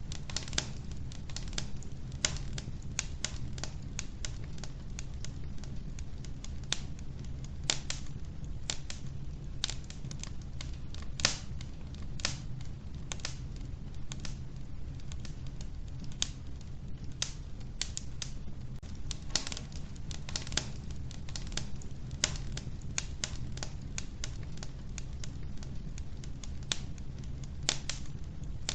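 Wood fire crackling in an old wood-burning stove: irregular sharp pops and snaps, several a second, over a steady low rumble of the flames.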